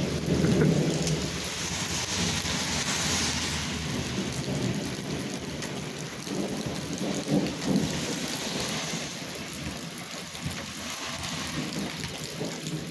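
Steady rain falling and pattering on surfaces, with an uneven low rumble underneath.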